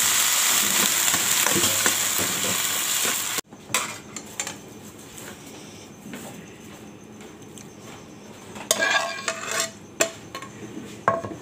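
Okra sizzling hard in a frying pan while a metal spatula stirs it, the hiss of water just added to the hot pan; it cuts off suddenly about three seconds in. After that, a few scattered clinks and a short clatter of the pan and spatula against a ceramic plate as the okra is served.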